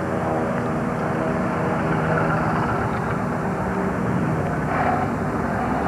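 An engine running steadily, a continuous drone.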